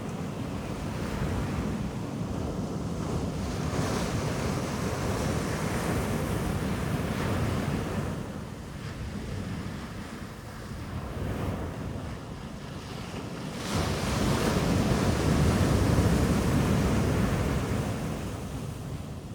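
Sea waves breaking and washing on a beach, with wind buffeting the microphone. The wash swells and ebbs; a louder surge comes in suddenly about two-thirds through and fades near the end.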